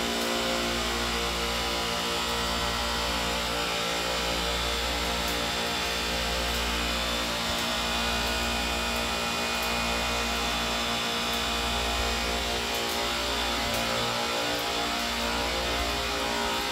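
Centralized refrigeration rack with its compressors running after start-up: a loud, steady mechanical hum made of many constant tones.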